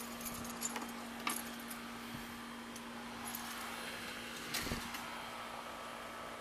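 A few light clicks and small metallic rattles of handling, three of them standing out, over a steady low hum.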